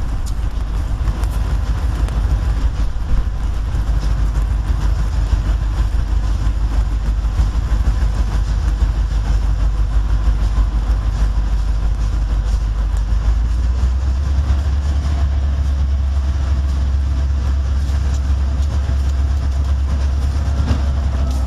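Two Providence & Worcester diesel-electric locomotives approaching at the head of a long train, engines working hard with a steady deep rumble. The low engine drone grows heavier about two-thirds of the way through as the lead unit draws near.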